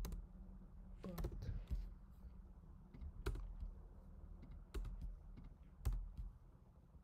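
Sparse typing on a computer keyboard: a handful of separate keystrokes, irregularly spaced, over a faint low room hum.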